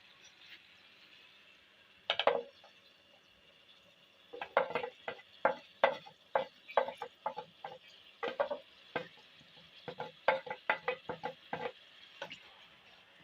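A spoon stirring in a cooking pot, scraping and knocking against the pot in quick runs of strokes, over a faint steady sizzle.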